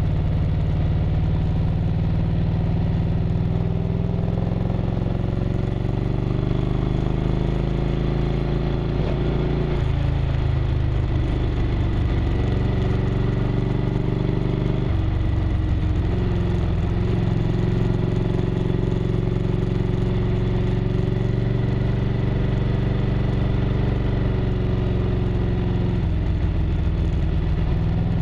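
1998 Harley-Davidson Road Glide's V-twin engine running under way, heard from the bike mount. Its note rises and falls with the throttle through the curves and changes sharply about a third of the way in, around halfway, and near the end.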